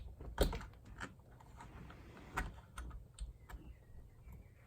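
Scattered light plastic clicks and taps as a small sun visor hinge cover cap is handled and fitted, the strongest about half a second in and a few fainter ones later.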